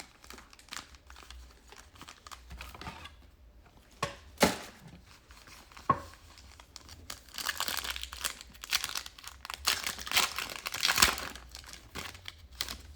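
Foil trading-card pack wrappers being handled and torn open: scattered crinkles and two sharp snaps in the first half, then a few seconds of dense crinkling and tearing, loudest near the end.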